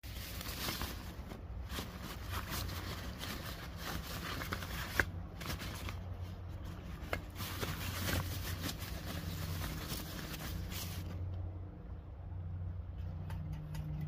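Dry rustling and scraping with scattered light clicks as camping gear is handled beside a Firebox stove, easing off about eleven seconds in, over a steady low rumble.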